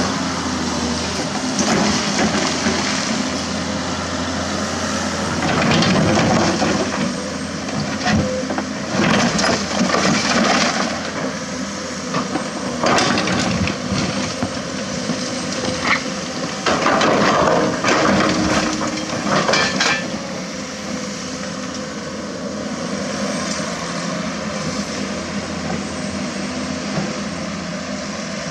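Komatsu PC200-6 excavator's diesel engine running steadily, with repeated loud crunching and scraping of broken concrete rubble under the bucket through the middle stretch; the last part is the engine alone.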